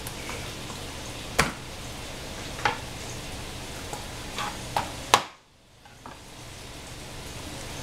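A chef's knife knocking sharply on a plastic cutting board five or six times while cutting a garlic clove, the last knock, about five seconds in, the loudest. Under it runs a steady sizzle of onion frying in oil in the pan.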